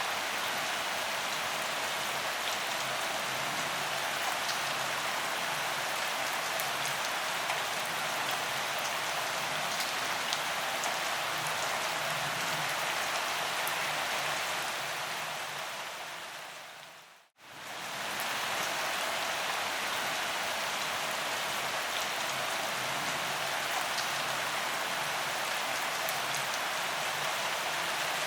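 Steady rain falling: a dense, even hiss with scattered ticks of single drops. About two-thirds of the way through it fades down to a moment of silence and swells straight back up.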